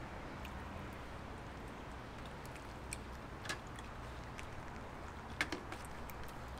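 Marinated pork rinds sizzling faintly on a homemade rebar grill, with a few sharp clicks of chopsticks against the grate and dishes, the loudest about five and a half seconds in.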